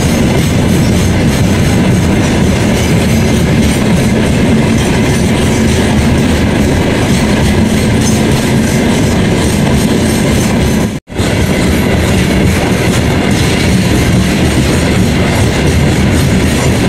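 Freight train of open-top gondola wagons rolling past close by, a loud steady rumble of wheels on rails. The sound cuts out for an instant about eleven seconds in.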